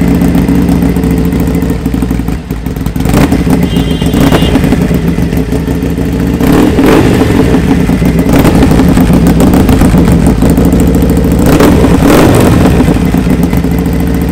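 Harley-Davidson Iron 883's air-cooled V-twin running loudly through a Vance & Hines 2-into-1 aftermarket exhaust, blipped with the throttle several times.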